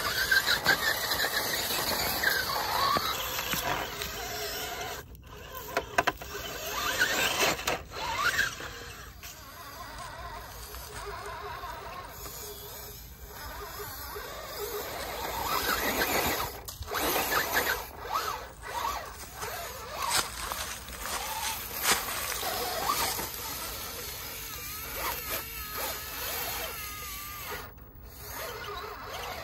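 Whine of an Axial SCX10 Pro RC rock crawler's Fusion Pro 2300kv brushless motor and geartrain, rising and falling in pitch with the throttle as it crawls over rock, with a few short knocks of tyres and chassis on the stone.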